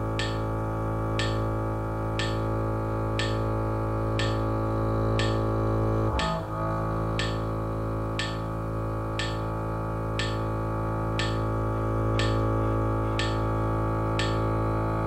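Krutz 200 double bass played with the bow: long sustained open-string notes, with a bow change about six seconds in. A metronome clicks once a second (60 bpm) over it.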